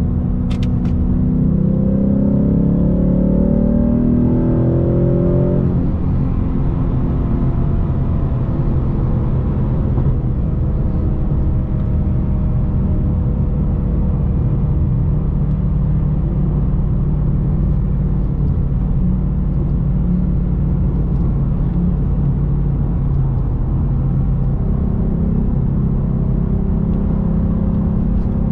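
Ford Mustang GT's 5.0-litre V8 engine pulling under acceleration while driving: its pitch rises for a few seconds, starting about two seconds in, then it settles into a steady cruise.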